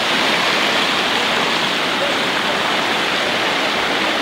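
Waterfall water rushing over rocks right at the microphone: a loud, steady rush of cascading water.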